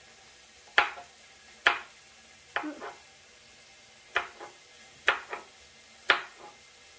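Kitchen knife chopping spring onions on a plastic cutting board: six sharp knocks about a second apart, some followed by a lighter tap or two.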